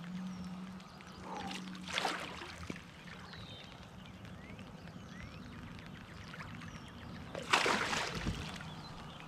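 Hooked bowfin thrashing at the water surface beside a kayak: a splash about two seconds in and a bigger, louder splash near the end.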